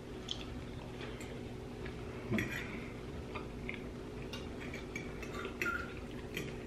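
Forks clinking and scraping on ceramic dinner plates in short, scattered clicks, over a steady low hum.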